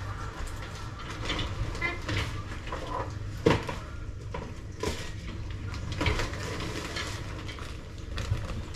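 Kitchen handling noise: scattered knocks and clinks of things being picked up and set down, with one sharp knock about three and a half seconds in, over a steady low hum.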